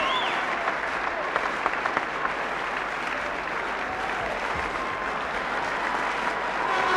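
Large arena crowd applauding and cheering steadily, with a few whistles near the start and the end.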